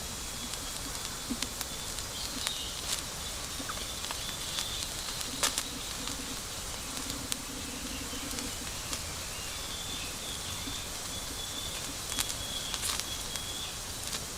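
Outdoor ambience: a steady hiss with scattered sharp crackling pops, like a campfire burning, and faint high bird calls now and then.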